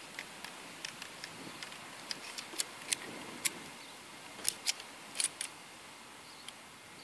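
Scattered sharp metallic clicks and small scrapes of a Ruger LC9s Pro 9mm pistol's slide and parts being worked by hand to seat them during reassembly, the loudest clicks coming in the middle.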